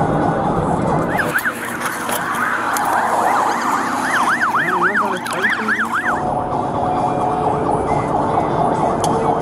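Police car siren cycling rapidly up and down in a yelp for several seconds, over heavy road and wind noise from a cruiser driving fast.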